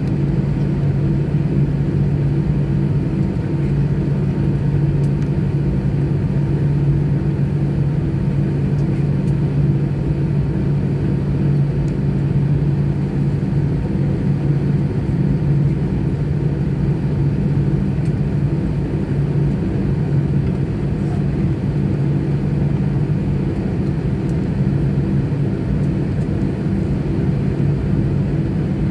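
Airbus A320-214 taxiing on its CFM56-5B engines at low power, heard inside the cabin as a steady low hum that does not change.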